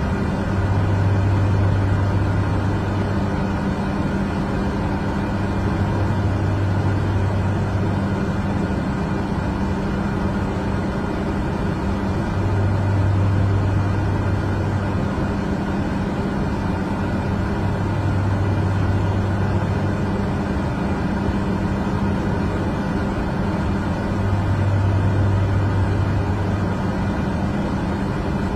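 Aircraft cabin noise in flight: the steady drone of the engines with the rush of air, and a low hum that wavers every few seconds.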